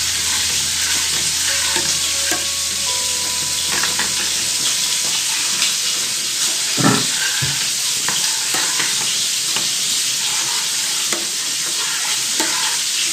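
A metal spoon stirring and scraping around a stainless steel saucepan of orange sauce, with occasional short knocks against the pan. Underneath runs a steady sizzle of duck fillets searing in butter on high heat.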